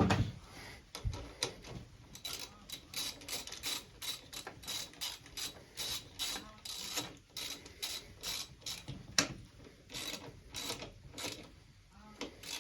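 Socket ratchet clicking in quick runs of short strokes, a few clicks a second, as the radiator guard bolts are run in.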